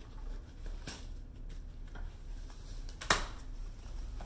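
Handling of a folded wagon's frame and fabric as its strap is undone: a light click about a second in, then one sharp snap about three seconds in, the strap's buckle coming open.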